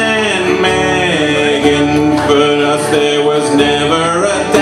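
A man singing with his own strummed acoustic guitar accompaniment.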